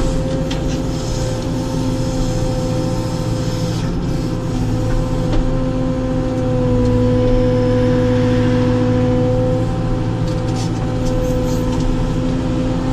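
Caterpillar 432F2 backhoe loader's diesel engine running steadily under load, heard from inside the cab while the backhoe digs. The engine gets louder for a few seconds in the middle and eases back, with a few light clicks near the end.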